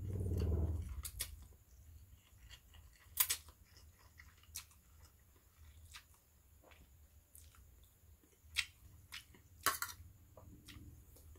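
Mouth sounds of someone eating instant fried noodles with rice: a louder slurp of noodles in the first second, then quiet chewing with a few short, sharp smacks and clicks scattered through.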